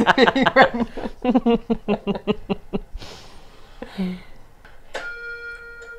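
Two women laughing together in rapid, even pulses for about three seconds, then trailing off into a breath. A steady held tone comes in about five seconds in.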